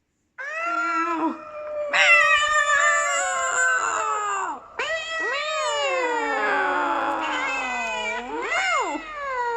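Long, drawn-out cat-like yowls, about four calls in a row. Each slides and wavers in pitch, and the longest, in the middle, falls slowly before a last call swoops up and down.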